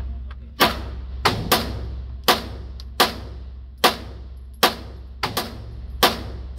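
A Canik SFx Rival 9mm pistol being fired in a string of about ten shots at a steady pace, with one quick pair about five seconds in. Each shot echoes briefly off the walls of an indoor range.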